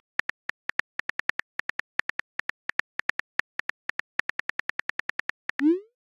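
Simulated phone-keyboard typing clicks from a texting-story app: a rapid run of short, identical ticks, about seven a second. Near the end a quick rising swoosh, the message-sent sound.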